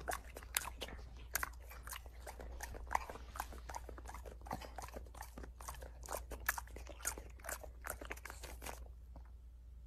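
English bulldog crunching and chewing popcorn, a quick irregular run of crisp crunches that stops about a second before the end, over a low steady hum.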